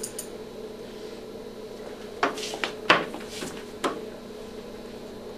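Anesthesia equipment being handled while the dog is intubated and hooked up to the breathing hose: about four sharp clicks and knocks between two and four seconds in, over a steady hum.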